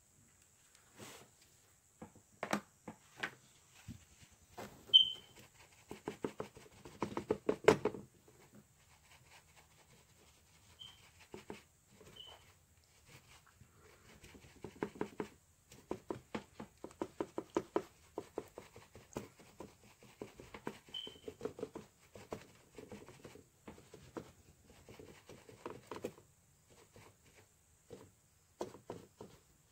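Crumpled tissue paper dabbed repeatedly onto a stretched canvas to stipple blossom texture: runs of quick taps on the canvas, in several bursts with short pauses between them.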